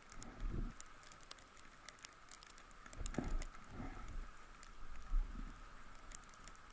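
Handling noise on a body-worn action camera as the wearer shifts about: scattered small clicks and crackles, with a few low thumps of wind buffeting the microphone, over a faint steady high hum.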